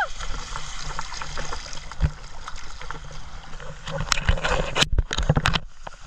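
Sea water sloshing and splashing against a GoPro in its waterproof housing, heard muffled through the case. About four seconds in comes a quick cluster of loud splashes and knocks of water hitting the housing.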